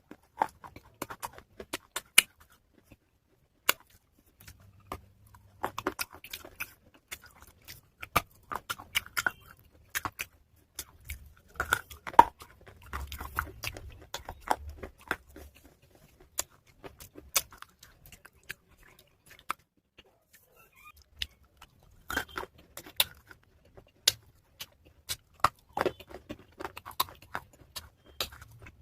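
Close chewing of wet pieces of a baked clay pot (matka): irregular crisp crunches and crackles, with a couple of brief pauses.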